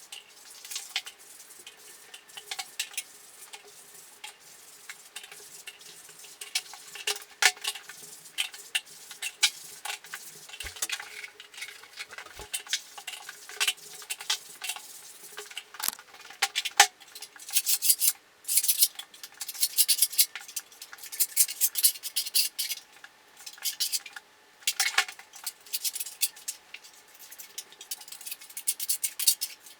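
Hand tools scraping and clinking during wall work in a bare room: a putty knife working wall filler, in irregular short strokes that grow denser and louder after the middle.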